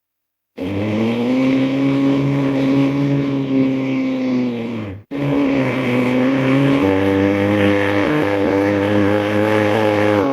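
Made-up creature roar built from layered hippo and bear recordings: two long, loud, low roars of about five seconds each, the second following straight on after the first cuts off and wavering slightly in pitch.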